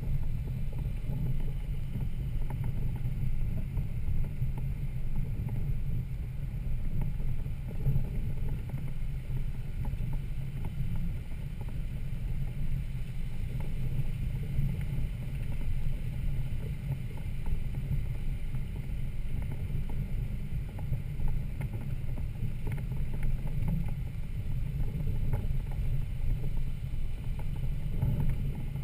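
Toyota Land Cruiser 80 Series engine and drivetrain running at low revs, a steady low rumble with scattered small knocks and rattles.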